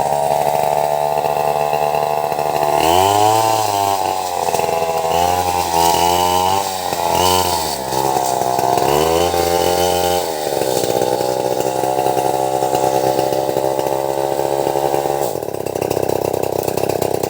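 Stihl 070 two-stroke chainsaw running loudly. Its engine note dips and climbs again several times between about three and ten seconds in, then holds steady.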